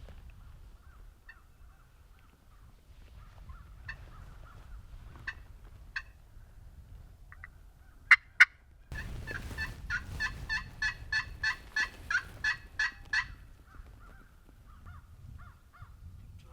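Wild turkey yelping: two sharp, loud notes about halfway through, then a run of about a dozen evenly spaced yelps, about three a second, lasting some four seconds.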